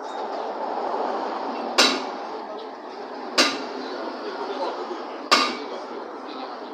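A hammer striking metal: three sharp, ringing blows about a second and a half to two seconds apart, over a low murmur of voices.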